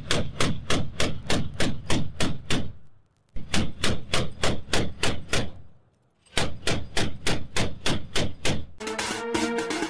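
Mk 38 25 mm naval gun mount (M242 Bushmaster chain gun) firing in steady bursts of about four rounds a second, pausing briefly twice. Music takes over near the end.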